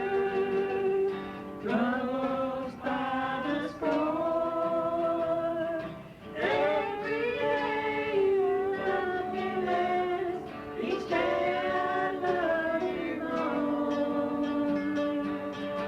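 Singing with guitar accompaniment, played back from a home-recorded cassette tape. The singer holds long notes, with a short break about six seconds in.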